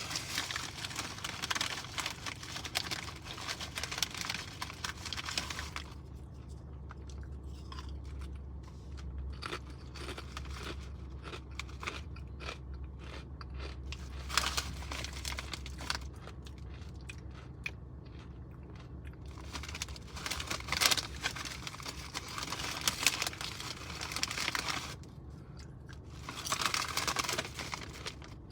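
Close-up crunching and chewing of kettle-cooked potato chips, in spells of loud crunching with quieter chewing between.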